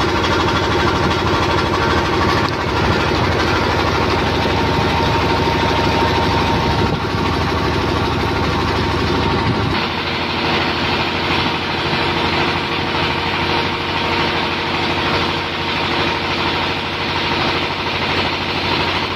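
29 hp Petter diesel engine running steadily, the sound shifting slightly about ten seconds in.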